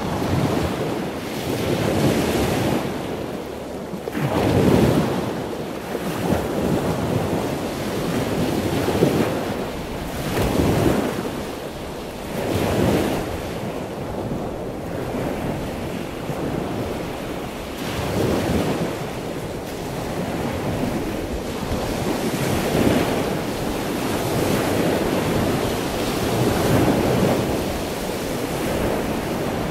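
Wind rushing over the microphone, a steady loud noise that swells in irregular gusts every few seconds.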